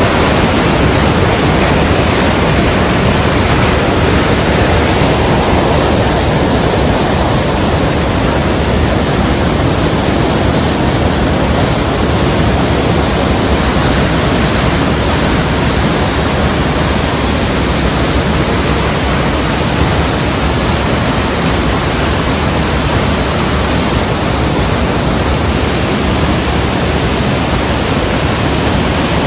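Rhine Falls waterfall: the loud, steady rush of a large volume of water falling over rocks.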